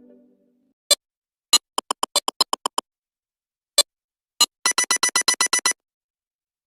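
Mobile phone ringtone of short, bright electronic beeps: two single notes, then a quick run of about eight notes. The pattern repeats with a faster run of about a dozen notes, then stops.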